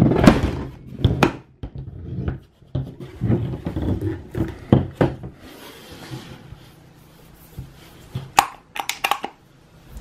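Hard plastic pedestrian call button units being handled and shifted about on a tabletop: irregular knocks, clunks and rubbing, with a quick cluster of sharp clicks near the end.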